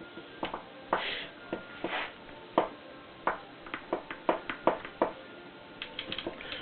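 Irregular sharp clicks and light knocks from handling the opened jigsaw's metal and plastic parts while greasing its gearbox, ending with a quick run of small clicks.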